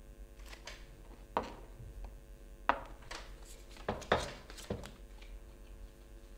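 Stones and a tarot deck being picked up and set down on a wooden tabletop: a handful of sharp, irregular knocks and taps, the loudest a little before three seconds and around four seconds in, over a faint steady hum.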